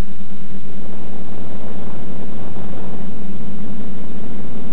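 Loud, steady hiss with a constant low hum underneath, the audio track of a 5.8 GHz analog FPV video link recorded during a quadcopter flight.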